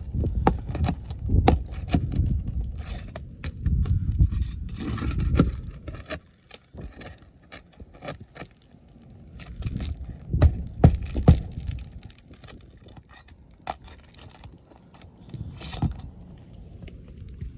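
Nails being worked out of asphalt roof shingles with a metal hand tool: irregular clicks and scrapes of metal on the nail heads and the gritty shingle surface, over a low rumble.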